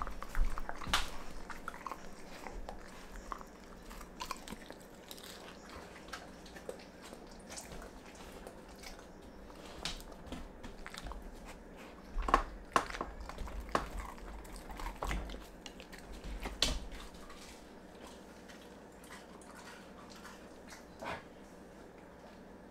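Dog eating raw ground meat off a wooden cutting board: wet biting and chewing with scattered clicks, busiest at the start and again in a cluster past the midpoint, where soft low thumps come in with them.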